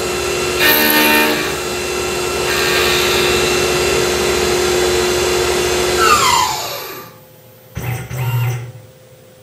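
Tormach PCNC 1100 CNC mill spindle running with a steady whine as a quarter-inch end mill cuts dry through the ends of stainless steel screws, with a harsher burst of cutting noise about a second in. About six seconds in the spindle winds down, its whine falling in pitch until it stops.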